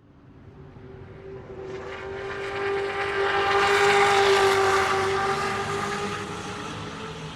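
NASCAR stock car's V8 engine passing by at speed: the steady engine note swells up from nothing, is loudest about four seconds in, then fades away.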